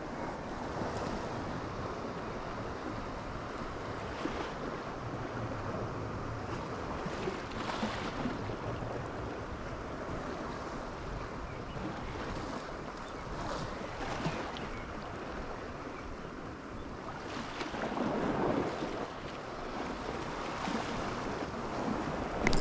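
Mediterranean sea waves washing against a rocky shore, with wind on the microphone; a louder wash comes about eighteen seconds in.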